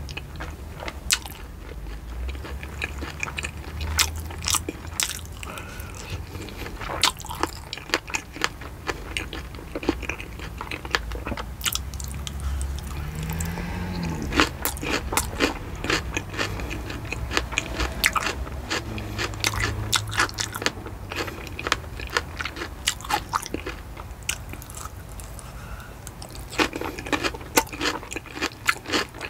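Close-miked chewing of fresh fruit pieces from a skewer (blackberry, cucumber, strawberry). Many sharp, wet crunches and mouth clicks come at irregular intervals.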